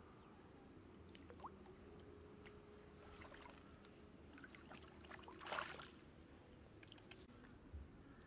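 Faint small splashes and trickles of shallow water stirred by a hand reaching and groping below the surface, with one louder short splash about five and a half seconds in.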